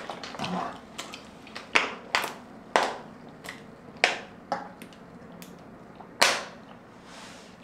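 Close-miked gulps of someone drinking from a plastic bottle: about ten short swallows, one every half second or so, with a longer, louder one about six seconds in.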